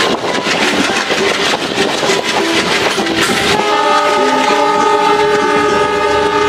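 Passenger train running on the rails with wheel clatter and a few short squeals. A little past halfway the diesel locomotive's horn starts a long, steady blast of several notes at once.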